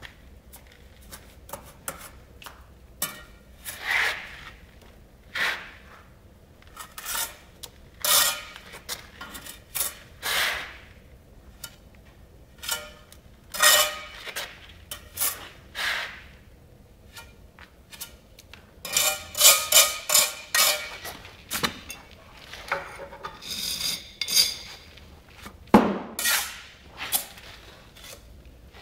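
Bricklayer's steel trowel scraping mortar against bricks and joints while filling in the joints of cut skewback bricks, in short irregular strokes. There is a quick run of strokes about twenty seconds in and a sharper knock near the end.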